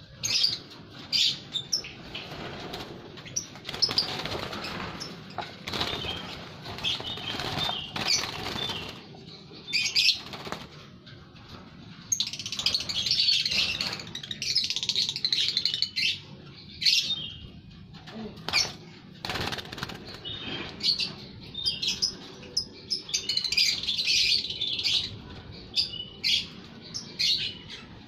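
Lovebirds chirping in rapid high-pitched clusters, with wings flapping and many short sharp clicks.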